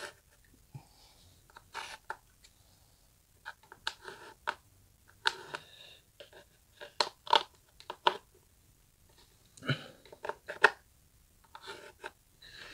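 Pencil scratching in short, intermittent strokes on a painted plaster wall, tracing the outline of a metal electrical back box, with plastic dust sheeting rustling.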